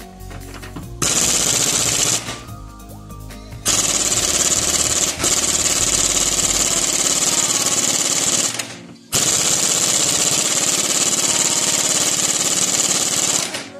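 Pneumatic impact wrench hammering on a bolt of a rust-rotted rear subframe, in three bursts: a short one about a second in, then two long runs of several seconds each with a brief break between them. Background music plays underneath.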